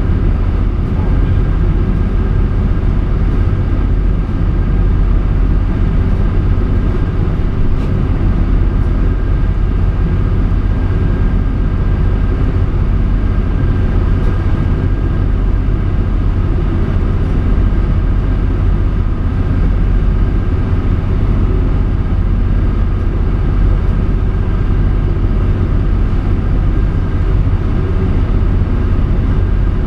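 Motorboat's engine running steadily under way, a loud, even low drone heard inside the wheelhouse, with a thin steady whine above it.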